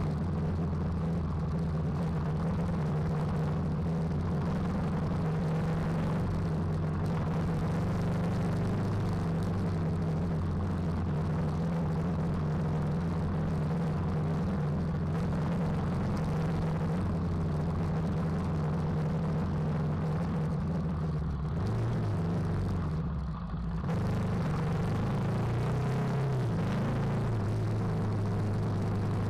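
KTM 390 Adventure's single-cylinder engine running at a steady cruising pace on a dirt track. About three-quarters of the way through, the engine note wavers and dips briefly, then settles back to a steady note.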